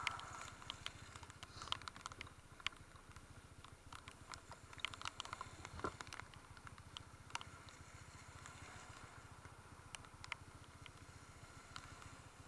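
A Honda CB150 Invicta's single-cylinder engine running low and steady under scattered sharp ticks of raindrops striking close to the microphone.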